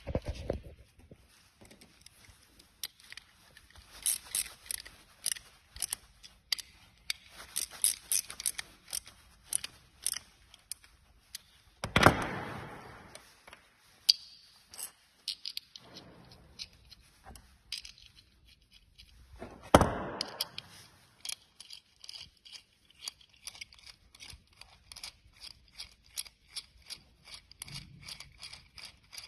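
Hand tools and small metal parts being worked on a sim-racing brake pedal assembly: scattered clicks, scrapes and clinks, two louder knocks (one about twelve seconds in, another about twenty), and a run of quick, even clicks near the end.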